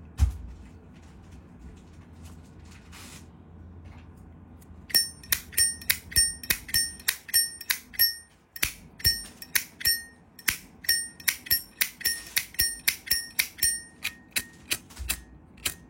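Zippo Armor lighter's lid flicked open and snapped shut again and again, starting about five seconds in: a run of sharp metallic clicks, about three to four a second, each with a bright ringing ping.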